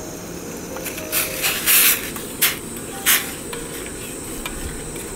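Five short hissing bursts, the longest about two seconds in, over faint background music.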